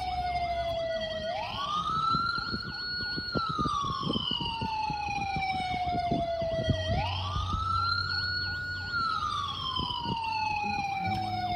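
A play emergency-vehicle siren in wail mode, sounding inside a car: it rises quickly, holds high briefly, then falls slowly, twice, with a fainter, faster-cycling siren sound underneath. A low engine hum shows at times.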